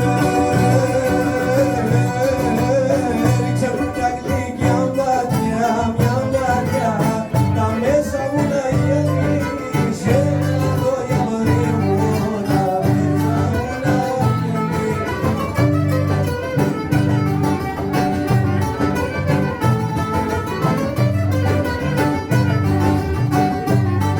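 Greek rebetiko-style instrumental music: plucked strings keep a steady pulsing rhythm under an ornamented violin melody.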